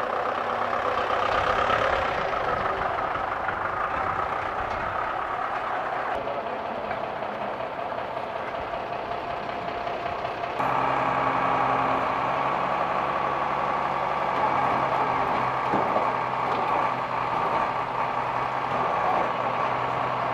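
Flatbed tow truck's engine running steadily at idle. The sound changes abruptly about six seconds in and again about ten seconds in, with the low steady engine hum strongest in the last half.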